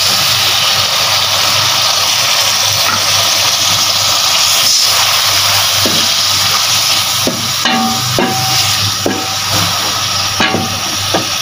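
Onion, green chilli and turmeric masala sizzling steadily in hot oil after a splash of water is poured in to fry the spices down. From about six seconds in, a spatula scrapes and knocks against the pan as the masala is stirred.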